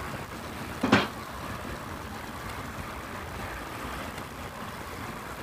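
Steady rush of wind and road noise from a moving motorcycle, heard on the rider's camera microphone. A brief, louder burst comes about a second in.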